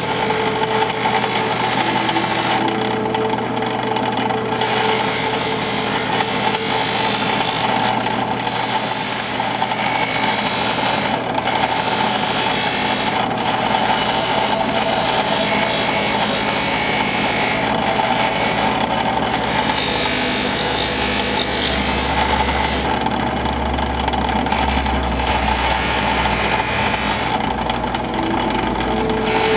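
Benchtop drill press motor running steadily, spinning a buffing wheel that a briar pipe is being held against for polishing. A deeper rumble swells for a few seconds in the latter part.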